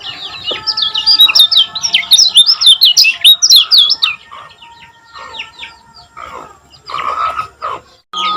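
Kecial kuning, a yellow white-eye, singing a fast, dense string of high, down-slurred chirps that thin out to scattered calls about halfway through. The sound drops out briefly near the end, like an edit.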